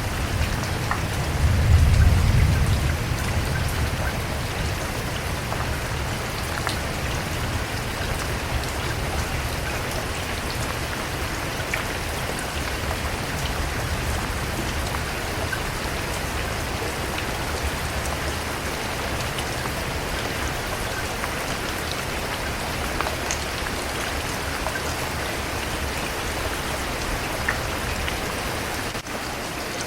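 Steady rainfall, with individual drops pattering and ticking on a surface. About two seconds in a brief low rumble swells and fades under the rain.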